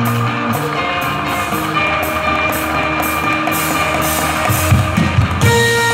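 Band music with a steady percussion beat under sustained melody notes, with a few louder drum hits about five seconds in.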